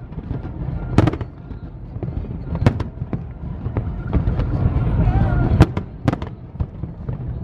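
Aerial fireworks shells bursting overhead: about five sharp bangs at irregular spacing, over a steady low rumble from the display.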